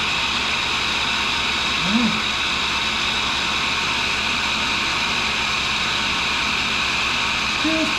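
1942 Cincinnati No. 2 tool and cutter grinder running steadily, its motor and wheel spindle giving an even whirring hum with no change in pitch.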